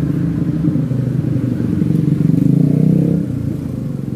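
Motorcycle engine running close by in street traffic, growing louder to a peak about two to three seconds in, then dropping away.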